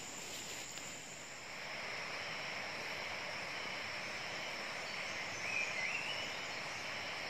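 Tropical forest ambience: a steady, high-pitched drone of insects, thickening about a second and a half in, with one short pitched call from an animal about five and a half seconds in.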